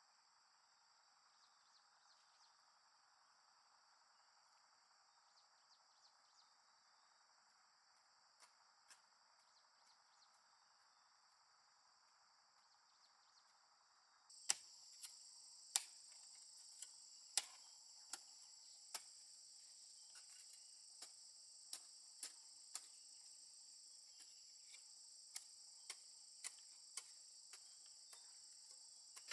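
Faint, steady chirring of insects such as crickets. About halfway through the insect sound suddenly gets louder, and scattered sharp clicks or snaps follow every half second to second.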